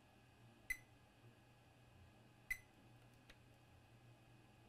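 Two very short, high-pitched chirps from a digital multimeter's beeper as its probes touch capacitors on the SSD board in diode mode, with a faint click between them. The beeps are brief, not the long continuous tone of a short.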